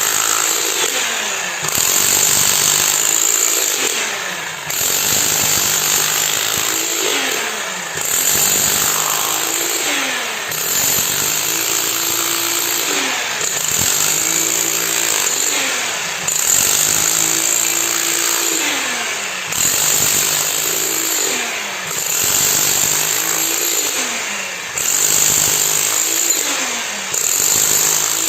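Concrete-pouring machine running hard, its pitch and loudness rising and falling in a regular cycle every two to three seconds as the load comes and goes.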